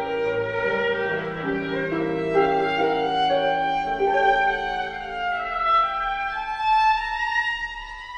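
Background instrumental music: a violin melody of long held notes over a lower sustained accompaniment, which drops out near the end as the music fades.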